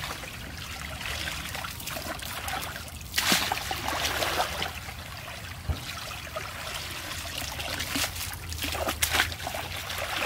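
Shallow muddy stream water trickling and splashing as a woven bamboo basket is scooped through it by hand, with a few sharper splashes, the loudest about three seconds in and more near the end.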